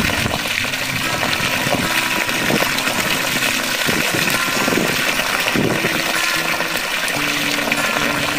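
Steady rush of water gushing out of the bottom of a vertical PVC pipe and churning into a shallow muddy pool: the outflow of a homemade micro-hydro water-wheel turbine.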